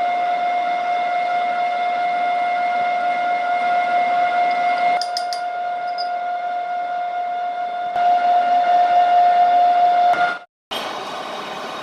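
A machine tool running with a steady high whine, with a few sharp metallic clicks about five seconds in. Near the end the sound cuts off abruptly and a noisier machine sound follows.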